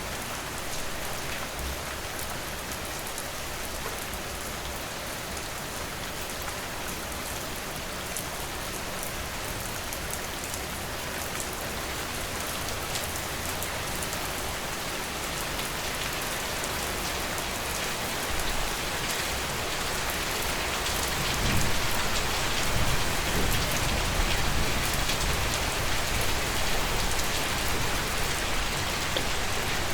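Steady rain falling, with individual drops audible; it grows heavier in the last third, with a low rumble joining in.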